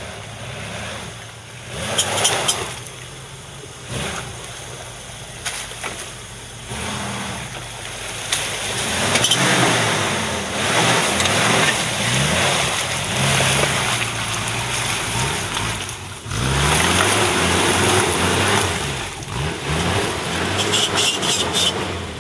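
Suzuki SJ413 4x4's 1.3-litre four-cylinder engine revving up and down again and again as it drives through deep mud ruts, with mud splashing from the wheels. It gets louder about a third of the way in as the vehicle comes close.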